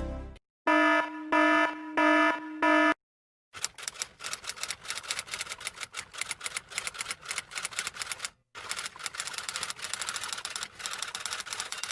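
An alarm beeping four times in a steady pitched tone, then after a short pause typewriter keys clattering in a rapid run of strikes, broken once by a brief stop.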